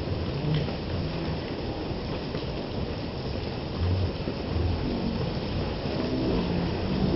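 Steady heavy rain with a low rumble underneath. Over the last few seconds a vehicle engine comes in, growing slightly louder as the car approaches.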